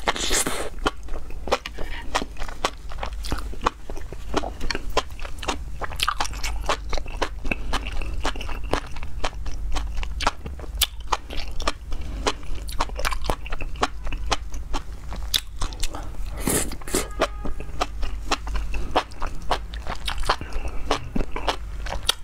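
Close-miked mouth sounds of eating spicy enoki mushrooms in chili oil: steady wet chewing with many crisp clicks. Longer slurps as strands are drawn in come near the start and again about two-thirds through.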